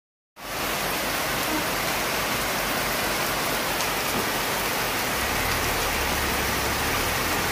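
Heavy rain pouring down onto wet ground and puddles: a steady, even hiss that starts abruptly. A low steady hum joins it about five seconds in.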